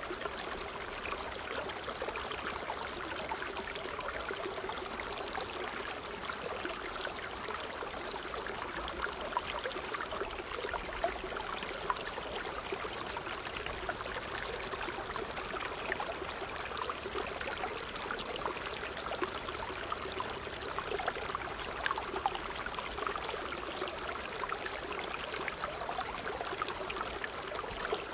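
Small creek running over rocks in a low cascade: a steady rush of water with many small splashes.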